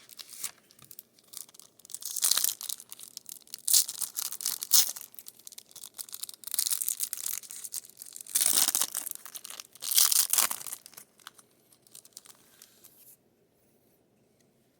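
Foil wrapper of a football card booster pack being torn open and crinkled, in a series of irregular ripping and crackling bursts that stop a couple of seconds before the end.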